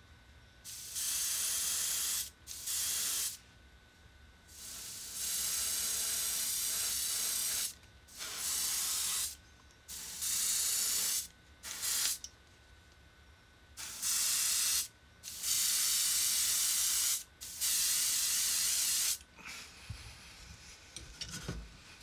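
An airbrush sprays a filler coat of Spectraflame paint onto a die-cast car body, trigger on and off. It makes about nine bursts of hiss, each one to three seconds long, with short pauses between. A few soft knocks come near the end.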